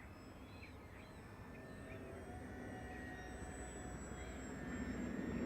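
Distant electric RC aerobatic plane, its brushless motor and propeller giving a faint, steady whine that grows gradually louder.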